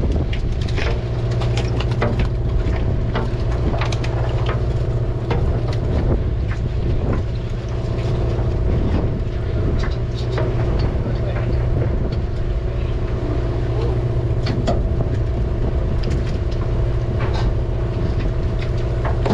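Fishing boat's engine running with a steady low drone, with scattered sharp clicks and knocks from the deck.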